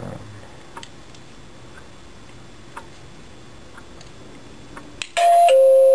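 A few faint ticks, then a click and a GE 19209 wireless doorbell chime playing its standard ding-dong about five seconds in: a higher note, then a lower note held on.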